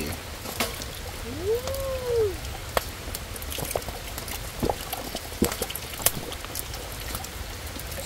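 Steady rain, with scattered drops tapping on a camping tarp. One short rising-then-falling tone comes about two seconds in.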